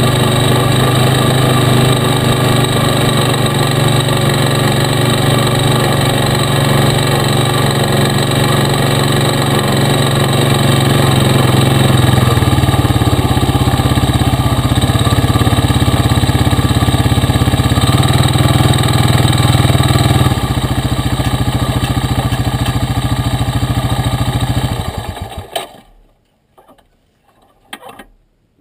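Honda four-wheeler (ATV) engine running steadily under way, its note changing twice partway through. Near the end the engine is shut off, leaving only a few faint knocks.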